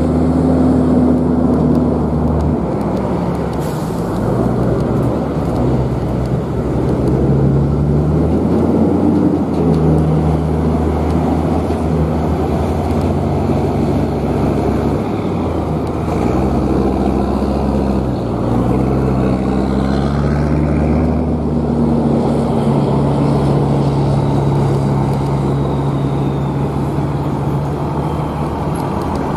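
Double-stack intermodal freight train's well cars rolling along the track: a steady, loud low rumble with low humming tones that shift in pitch.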